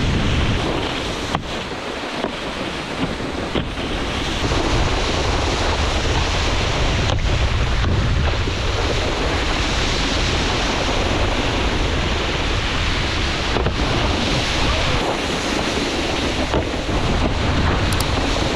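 Steady rush of wind over the microphone mixed with the hiss of water spray from a wakeboard carving behind a cable tow, with a few light knocks now and then.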